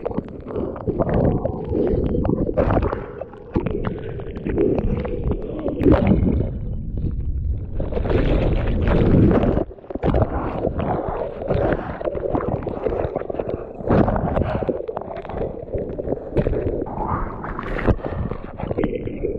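Breaking whitewater rushing, splashing and gurgling right at a camera held down in the foam, with the sound coming and going as the surf washes over it.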